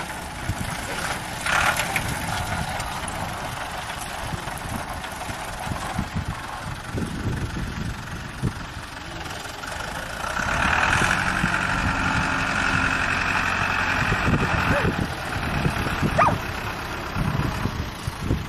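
Farm tractor engine running as it pulls a potato digger through the soil, louder for a few seconds in the middle.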